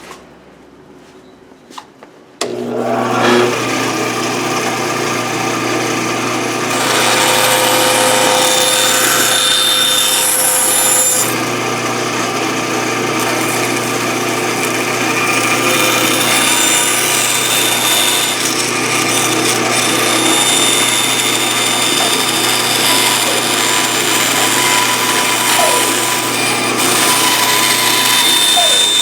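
Bandsaw starting suddenly about two seconds in and running steadily with a low motor hum, its blade cutting the top-view profile out of a wooden dragster blank.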